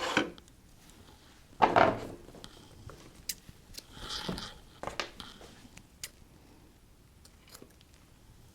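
Handling noises at a work table: a few short knocks and scrapes, the strongest near the start and about two seconds in, then a brief rustle and a couple of small clicks, with quiet in between.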